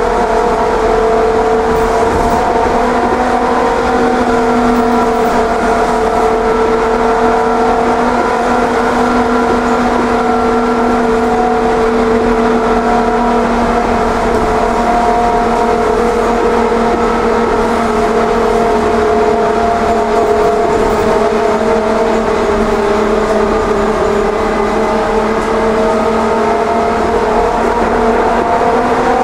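Škoda 14 Tr trolleybus running, heard from inside the cabin: a steady electric whine of several tones over a low road rumble. The whine sags slightly in pitch midway and rises again near the end as the speed changes.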